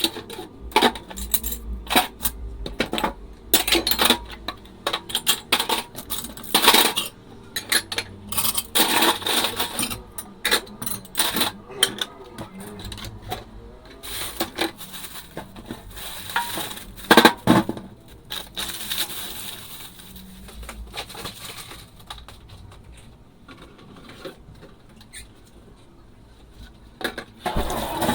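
Dishes and cutlery clinking and knocking together as they are washed by hand in a sink: irregular runs of sharp clinks, with one loud knock a little past halfway, then quieter for a few seconds near the end.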